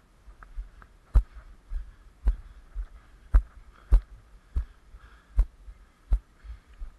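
Footsteps at walking pace: a steady run of dull thumps, each with a sharp knock, about one every two-thirds of a second, jolting the camera.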